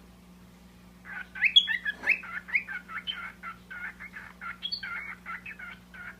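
Pet parrot chattering: a quick run of short chirping calls, several a second, starting about a second in and going on for about five seconds.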